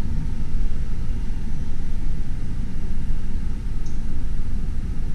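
A steady low rumble with no rhythm and no distinct events.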